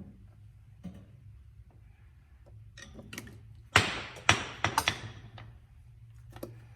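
Sharp clicks and knocks of a wiring terminal being worked onto a switch terminal, with light ticks at first and a cluster of loud clacks about four seconds in, over a low steady hum.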